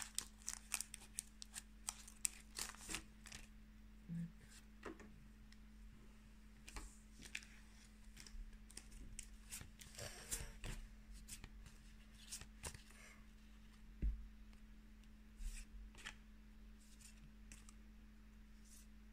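Faint crinkling and rustling of a foil Pokémon booster pack being torn open and handled, followed by the light slide and click of the trading cards as they are taken out and moved one behind another. A single soft knock comes about two-thirds of the way through.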